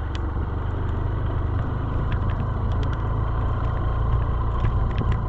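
Motorcycle on the move: steady engine running with a low wind rumble on the mic, and scattered small ticks throughout.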